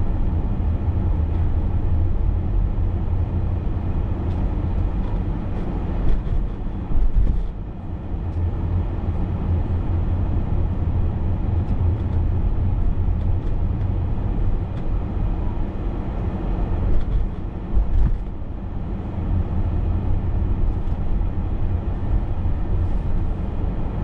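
Steady engine and road rumble inside a moving vehicle, with a few brief louder knocks about six seconds in and again around seventeen to eighteen seconds.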